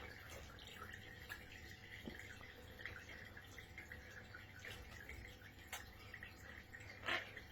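Quaker parrot bathing in shallow water: faint drips and small splashes, with one louder splash near the end.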